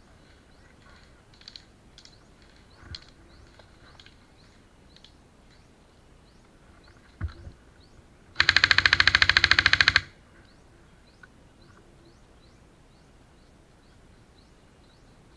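Airsoft gun firing one rapid full-auto burst, about a second and a half long, a little past the middle. A single sharp knock comes just before it.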